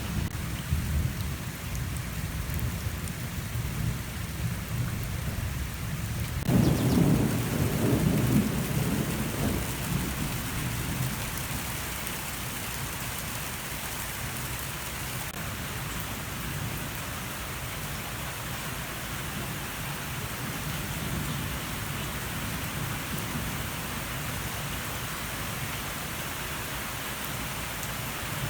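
Steady rain falling, with a roll of thunder that breaks suddenly about a quarter of the way in, rumbles loudly for a few seconds and then fades back under the rain.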